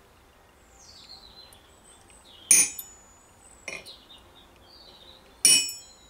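A hammer strikes a steel chisel held against the corner of a brass buckle on an anvil, cutting decorative chisel marks. There are two sharp, ringing metallic strikes about three seconds apart, with a lighter tap between them.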